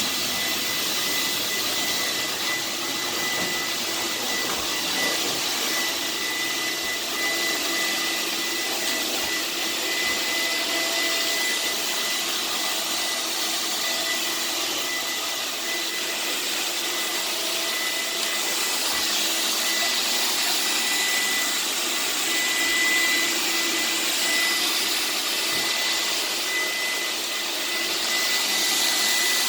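Vacuum cleaner running steadily, a loud rushing of air with a thin, high, steady whine from its motor.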